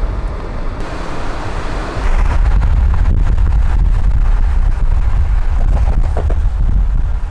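Steady road and wind noise from inside a moving Subaru SUV, a low rumble under a hiss; about two seconds in it steps up louder and stays there.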